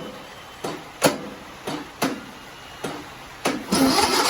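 Starting attempt on a 17.5 hp Briggs & Stratton lawn mower engine: a series of sharp clicks, then about three and a half seconds in the starter begins cranking with a louder steady noise and an uneven low pulsing. The attempts are running the battery down.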